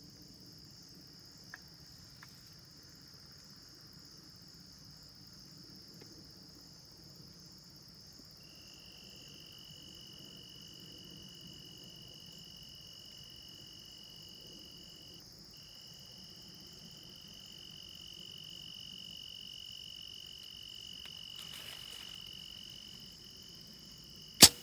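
Steady insect chorus: one high, even tone throughout, with a second, lower steady tone joining about a third of the way in. Near the end a single sharp, loud snap, the bow being shot at a deer.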